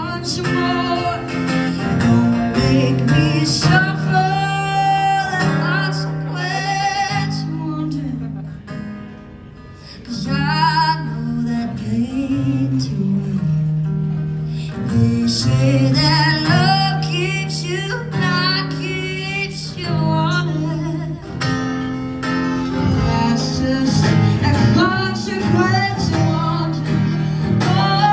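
A woman singing to her own acoustic guitar in a live solo performance. The music drops to a softer passage about eight seconds in, then returns at full level about two seconds later.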